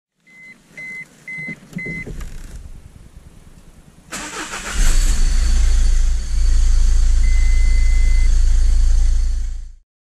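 Four short beeps, then a brief starter crank about four seconds in. The Citroen Xsara's 2.0 HDi diesel engine catches and runs steadily and loudly, with one longer beep a few seconds later.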